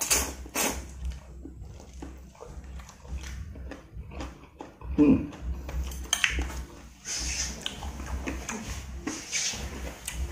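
Slurping of instant noodles in broth, then chewing with wet mouth clicks and a louder mouth noise about halfway through. Hissing breaths follow near the end, typical of a mouth burning from very hot chillies.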